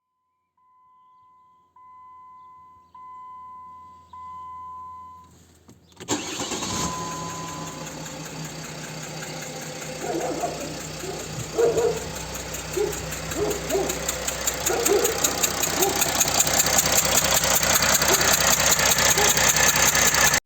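Four short beeps, each louder than the last, then the OM642 3.0-litre V6 diesel starts about six seconds in and idles with a fast, even ticking that grows louder toward the end. The ticking is typical of a failed injector gasket letting combustion pressure escape past the injector.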